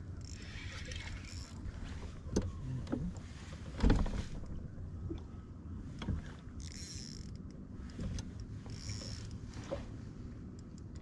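Baitcasting reel cranked in short spells while a hooked bass pulls against the bent rod, over a steady low hum. A few sharp knocks, the loudest about four seconds in.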